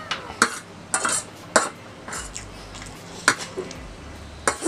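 Metal fork clinking and scraping against a stainless steel tray while scooping noodles, with about half a dozen sharp clinks at irregular intervals.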